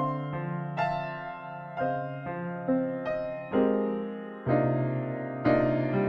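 Slow, gentle piano background music, with a note or chord struck about once a second and left to fade.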